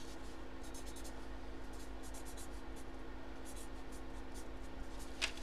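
A marker pen writing in short repeated strokes over a steady low electrical hum, with a brief louder rustle near the end.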